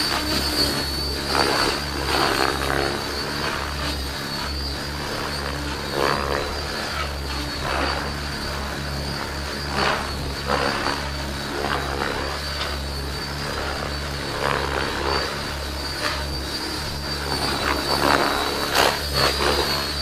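Thunder Tiger E700 electric radio-control helicopter flying aerobatics: a steady high whine from the motor and drive, with repeated whooshes from the main rotor blades as it swings through manoeuvres.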